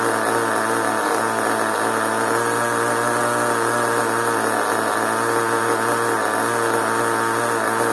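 Small nitro engine of an RC monster truck running steadily at a low, even speed, its pitch wavering slightly.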